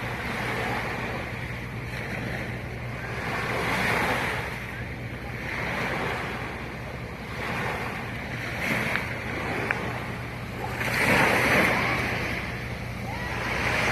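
Sea waves washing and breaking, the rush swelling and ebbing every couple of seconds, loudest about eleven seconds in, over a steady low hum.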